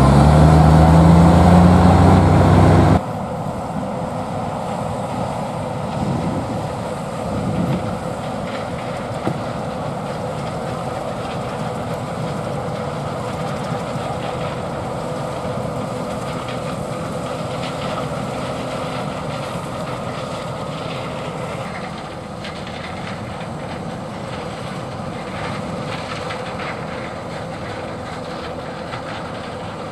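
A loaded dump truck's diesel engine pulls away, its pitch rising as it accelerates, for about the first three seconds. After a sudden cut, a John Deere 9570 STS combine harvesting corn runs steadily: an even machine hum with a held whine.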